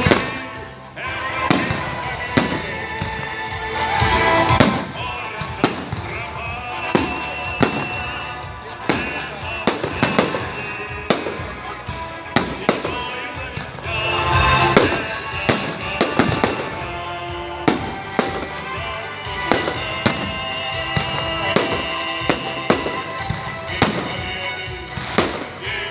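Fireworks salute: aerial shells bursting one after another, sharp bangs about one to two a second, with music playing underneath.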